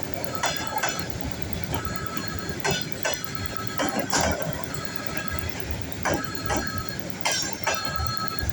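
Train rolling slowly over rail joints and switches, wheels knocking in an uneven clack, with short high wheel squeals that come and go over a steady rumble.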